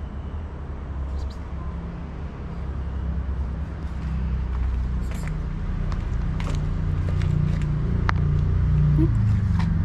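A motor vehicle's engine running with a steady low hum that grows louder about halfway through, with a few short clicks and scuffs over it.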